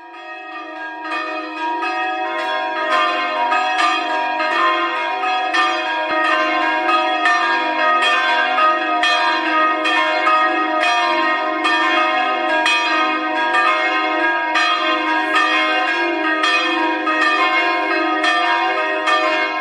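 Church bells ringing, a steady run of strokes a little under a second apart, each ringing on into the next; the peal fades in at the start.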